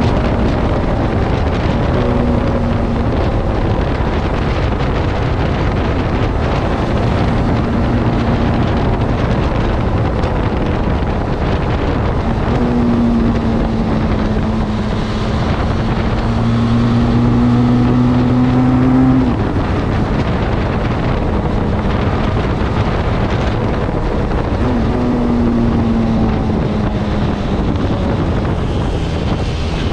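Benelli TRK 502's parallel-twin engine through its stock exhaust, cruising at steady throttle, heard from the rider's seat with wind buffeting the microphone. The engine note climbs slowly and falls off suddenly about two-thirds of the way through.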